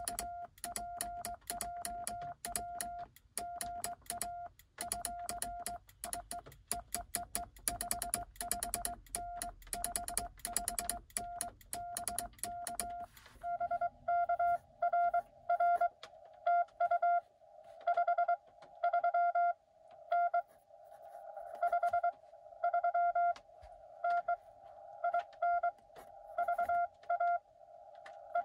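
Morse code tone near 700 Hz. For the first half it is the sending sidetone of a cootie (sideswiper) key: short beeps, each with a crisp click of the key contacts, over a low rumble. From about halfway, a received CW signal comes through the Xiegu X6100 transceiver: louder, longer beeps with a haze of band noise around the tone.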